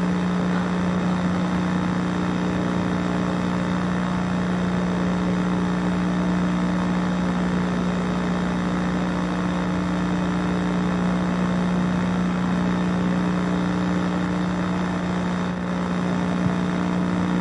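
Steady low hum with a fainter higher tone over an even hiss, unchanging throughout.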